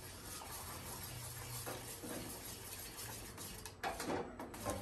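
A metal spoon stirring an arrowroot (koova) powder mixture in a steel saucepan, clinking lightly against the pan a few times.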